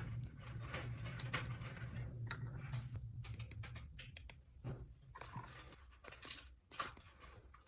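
Small plastic toy pieces being handled, giving scattered light clicks, taps and rustles. A low hum underneath stops about four and a half seconds in.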